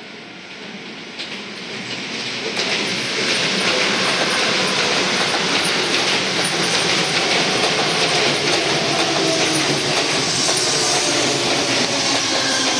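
Chiba New Town Railway 9100-series electric train approaching and passing close by. The rumble and clatter of its wheels on the rails grows over the first few seconds, then holds loud and steady, with a falling whine near the end.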